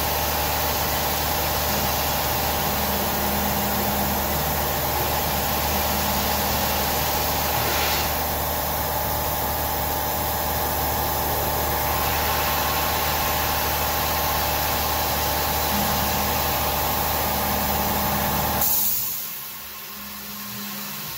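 CNC-converted G0704 milling machine cutting holes in an aluminium extrusion: the spindle runs steadily under flood coolant spray, with a low hum that comes and goes several times as the machine moves. About two seconds before the end the machining noise stops abruptly, leaving a much quieter hiss.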